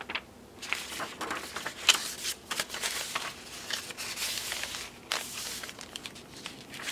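Paper rustling and crinkling: a folded sheet of journaling paper being handled and tucked back into a junk journal, with pages being moved and smoothed, in many short irregular scratchy strokes.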